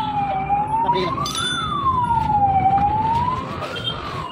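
A siren wailing, its pitch rising and falling slowly about once every two seconds. A sharp metallic clink rings out about a second in.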